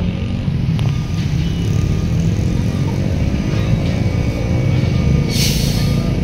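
Heavy container truck's diesel engine running under load with a deep rumble, its pitch rising slowly as the rig moves off. A short hiss of air from the air brakes comes about five seconds in.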